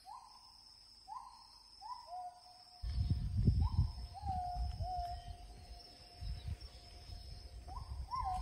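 A bird calls in a series of short hooting notes, each dropping slightly in pitch, repeated irregularly about eight times, over a steady high insect whine. From about three seconds in, a louder low rumbling noise joins in.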